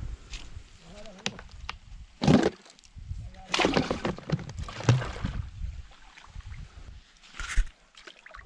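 Water splashing and sloshing in several short bursts, with handling of a plastic bucket and its lid. The loudest splashes come a couple of seconds in and around the middle.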